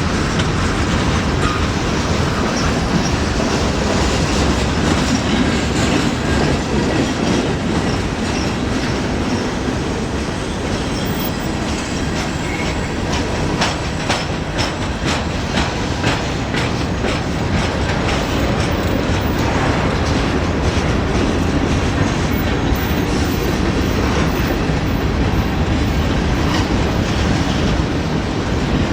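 CSX freight train cars rolling past at close range, a steady rumble of wheels on rail with clicking and clacking over the rail joints, busiest around the middle.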